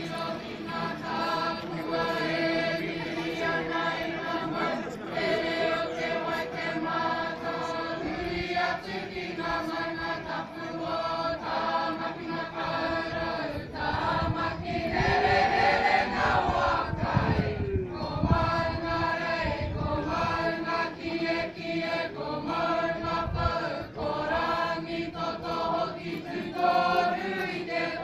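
A group of people singing a Māori waiata together, the voices blended as one choir. About halfway through, a burst of low rumbling noise rises under the singing for a few seconds.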